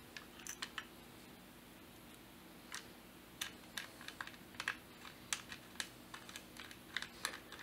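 Faint, irregular small clicks and taps of screws and a rubber spacer being handled and fitted by hand into a plastic holster claw: a few clicks, a pause, then a quicker run of clicks in the second half.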